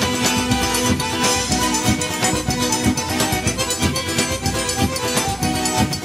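A Brazilian band playing music, with held instrument notes over a busy, steady percussion beat.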